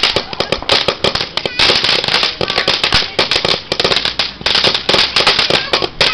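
Ground-level fireworks going off in the street: a loud, continuous crackle of rapid small bangs over a fizzing hiss.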